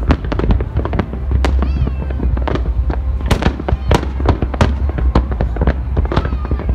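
Fireworks display: a dense, irregular barrage of sharp bangs from bursting shells, several a second, over a steady low rumble.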